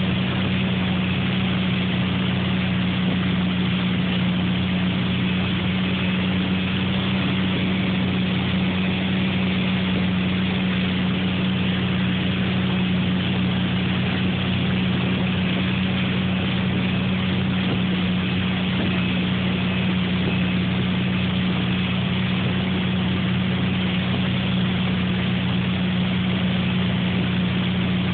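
Malibu wakeboard boat's inboard engine running steadily under way, a constant low drone, over the steady rush of the churning wake.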